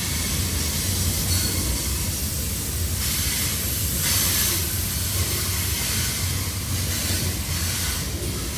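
Cars of a long CSX freight train rolling past steadily just below: a constant low rumble with a hiss over it, a little louder about four seconds in.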